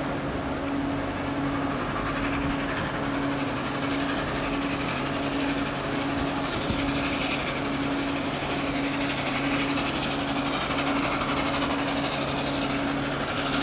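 LNER A4 Pacific steam locomotive 60019 Bittern, a three-cylinder engine, working hard as it approaches with its train: a steady rush of exhaust and hiss of steam.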